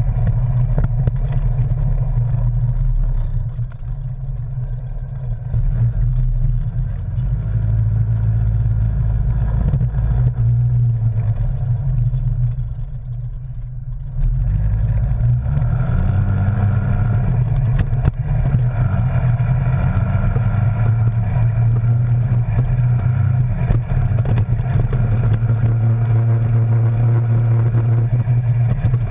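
Arctic Cat Wildcat Sport side-by-side's twin-cylinder engine running under load on a rough trail. It eases off twice for a second or two and revs back up about halfway through.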